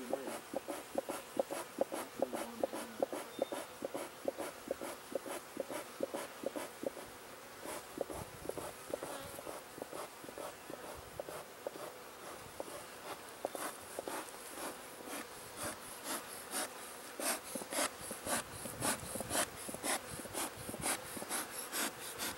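Honey bees buzzing faintly around open hive boxes, under a rapid run of sharp clicks and scratches about three a second that grow louder in the second half.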